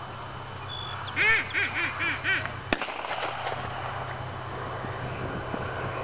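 A duck call blown in a quick run of five quacks, the first the loudest, then a single gunshot about half a second later: the call-and-shot signal that a bird is being thrown for a retriever's water mark.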